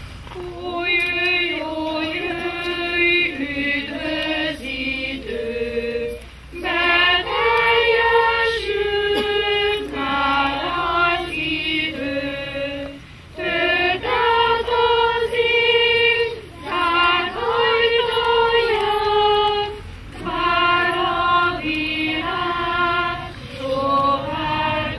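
A children's choir singing a slow song together, in phrases of about six seconds with short breaks for breath between them.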